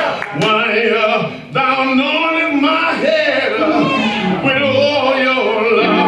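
A man's voice preaching in a sung, chant-like cadence, with pitched phrases held and bent, through the church microphone.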